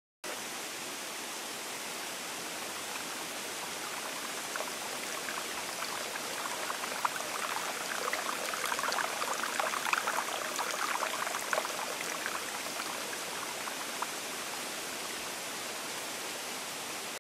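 Steady rush of flowing water that starts abruptly and cuts off at the end. A dense patter of small drips and splashes comes through it in the middle.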